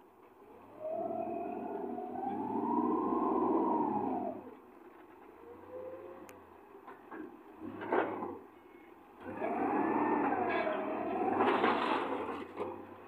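Maximal 3-ton forklift's engine revving with a whine that rises and then falls in pitch, in two long spells. Between them, about eight seconds in, there is a single sharp clank.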